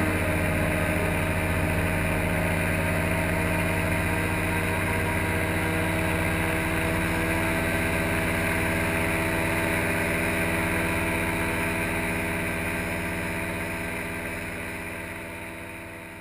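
Paramotor engine running at a steady throttle in flight, an even drone that fades away over the last few seconds.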